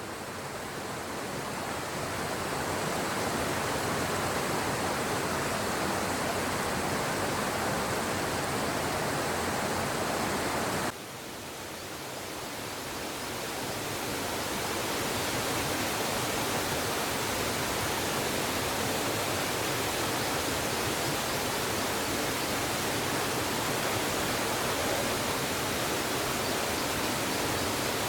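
Steady rush of flowing water. About eleven seconds in it drops abruptly and swells back up over a few seconds.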